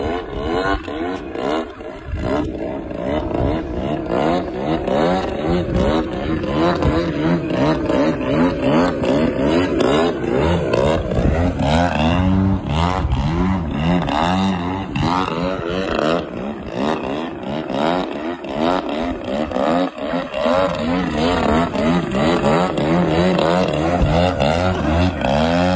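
Piston engine of a radio-controlled aerobatic biplane in flight, its pitch swinging up and down again and again as the plane manoeuvres and passes close by. It settles to a steady note near the end.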